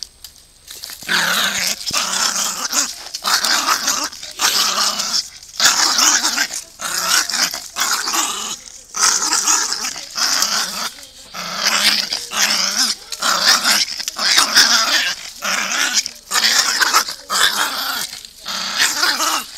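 Small black-and-tan terrier growling and snarling at a hand reaching toward it, in a run of harsh bursts roughly a second apart with short breaks for breath, starting about a second in.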